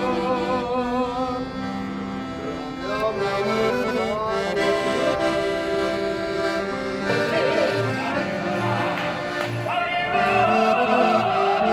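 Music: a melody of held, wavering notes over sustained chords. A steady low beat comes in about seven seconds in.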